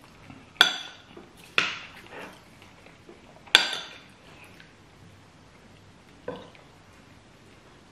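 A metal spoon and fork clinking and scraping against plates as food is scooped up, about four sharp clinks spread out with quiet in between.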